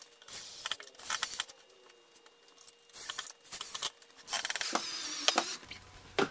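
Cordless drill driving a pocket-hole screw into wood, its motor running with a wavering whine for about a second near the end. Before it, a few knocks and clicks of the drill and boards being handled.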